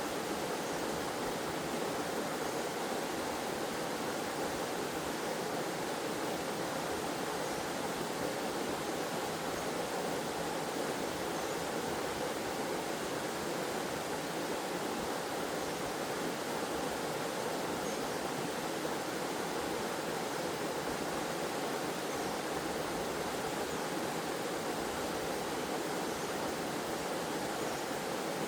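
Waterfall with flowing stream water: a steady, even rush with no breaks or distinct splashes.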